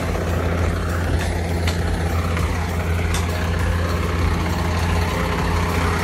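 Diesel engine of a Mack dump truck running steadily at low revs, a deep even hum, with a few faint clicks.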